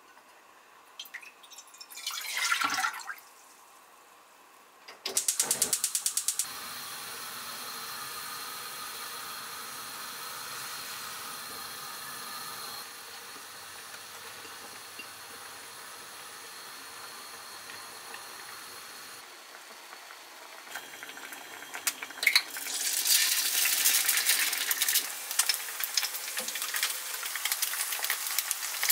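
Broth pouring into a saucepan, then a gas stove's igniter clicking rapidly for about a second and a half. The burner flame and the simmering broth hiss steadily. From about 22 s, eggs sizzle and crackle in hot oil in a frying pan.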